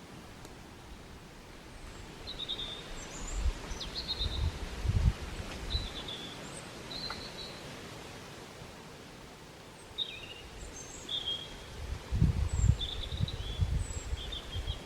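Small birds chirping, short high calls repeated every second or so. Bursts of low rumble come about four seconds in and again from about twelve seconds, loudest near the end.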